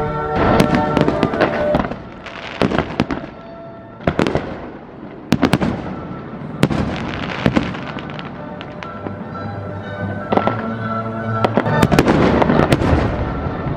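Fireworks going off: clusters of sharp bangs and crackling bursts, over music playing underneath.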